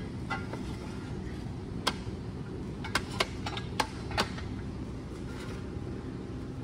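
Steel ratcheting jack stands being set and adjusted: a handful of sharp metal clicks and knocks, most of them between two and four and a half seconds in, over a steady low hum.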